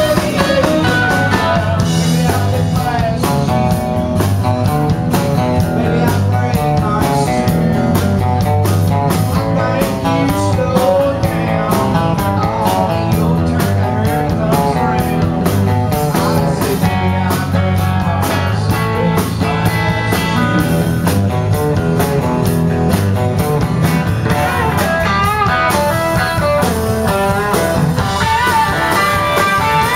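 Live country band playing: electric guitar, bass, acoustic guitar and drum kit, with a steady beat and an electric guitar carrying the lead line.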